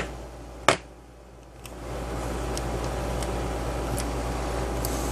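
Hands working a plastic camping lantern apart: a sharp plastic click under a second in, then faint rubbing and a few small ticks over a steady low hum.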